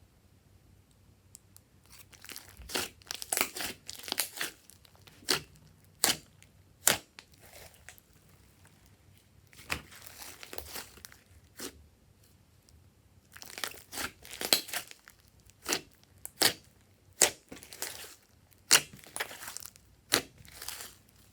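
Clay slime being squished and pressed by hand, giving sharp clicking pops and crackles in bursts, with short quiet pauses between handfuls.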